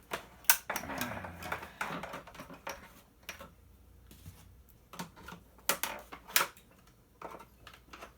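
Hard plastic parts clicking and knocking irregularly as an appliance housing is handled and pried at, with a short scraping rattle about a second in. The part will not come free because two hidden screws still hold it.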